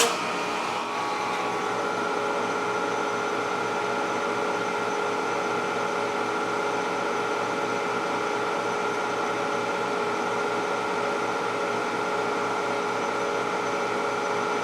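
Kearney & Trecker horizontal milling machine running steadily, its spindle and gear train giving an even hum with several whining tones, as a 3-inch boring head takes a finishing pass in a counterbore.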